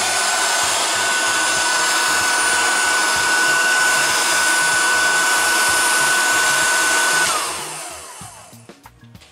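Handheld hot air gun running: a steady rush of blown air with a high motor whine. About seven seconds in it is switched off and the fan winds down, the whine falling in pitch as it fades.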